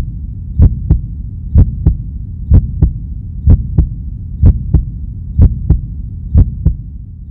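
Heartbeat sound effect: paired lub-dub thumps about once a second over a steady low hum, cutting off abruptly at the end.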